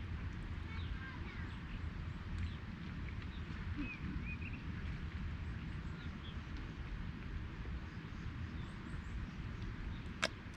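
Scattered short bird chirps over a steady low rumble, with one sharp click near the end.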